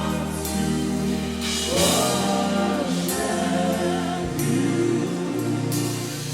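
Gospel choir singing a praise song with instrumental accompaniment.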